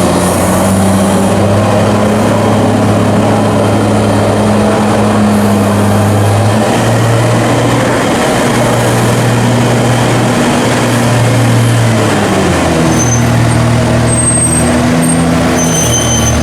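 Tractor engine running hard, its pitch stepping up and down several times as the revs change.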